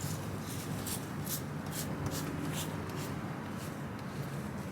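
Trigger spray bottle of wheel cleaner spraying onto a car wheel: repeated short hissing squirts, about two a second.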